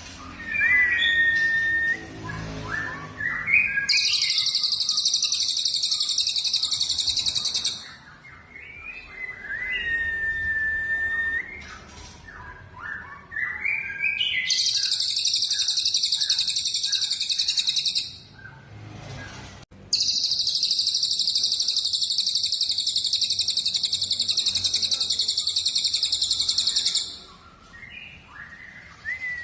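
Recorded songs of cucak jenggot (grey-cheeked bulbul), cililin and canary: clear whistled notes that rise and then hold for about a second, quick runs of short chirps, and three long, dense, high trills lasting several seconds each.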